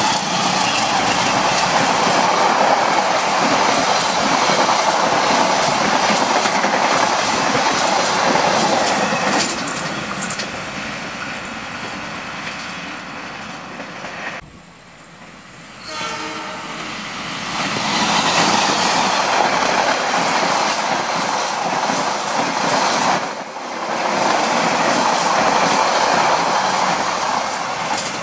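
Diesel-electric locomotive and its passenger coaches passing through at speed: engine noise and the clatter of wheels over the rail joints. Loud for the first ten seconds, dropping away briefly about halfway, then loud again for most of the last ten seconds.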